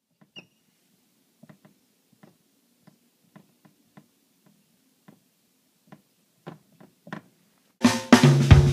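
Faint, irregular taps and strokes of a marker pen writing on a whiteboard. Music with drums comes in suddenly near the end.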